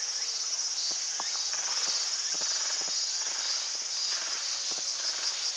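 Steady, high-pitched shrill of a summer insect chorus in dense vegetation, with faint scattered ticks.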